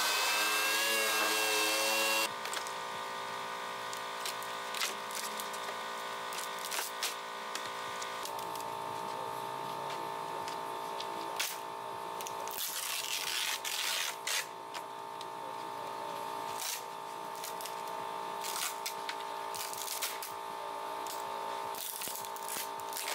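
Pneumatic orbital sander running on a bumper cover, cutting off about two seconds in. Then carbon fiber cloth being pried and peeled off a bumper cover by hand, with scattered crackles and tearing over a faint steady hum.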